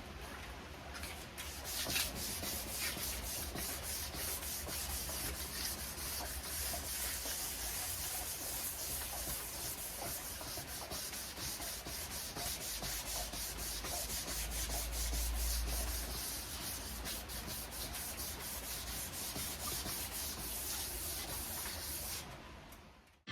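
Wet-and-dry sandpaper being rubbed back and forth over a headlight lens with plenty of water: a continuous rasping made of quick sanding strokes. It starts about a second in and fades out just before the end.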